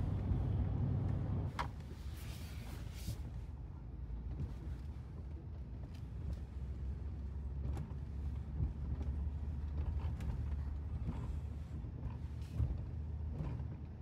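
Steady low rumble of a vehicle driving, heard inside the cab, with a few faint clicks and creaks.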